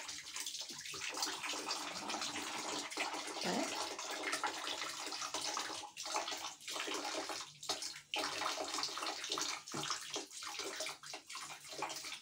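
Water running and splashing, with several brief breaks in the flow in the second half.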